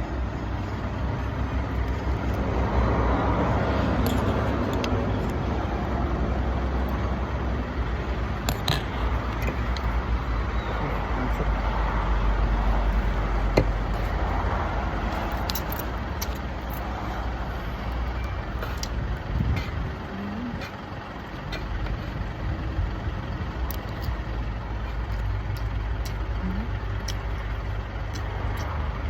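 Steady low rumble of a running motor vehicle, with scattered light clicks and knocks.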